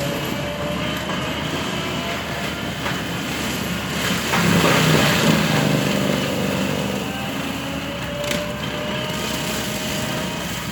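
Bobcat skid-steer with a forestry mulcher head running steadily, with faint slowly rising whines. It grows louder and denser for about two seconds, starting about four seconds in.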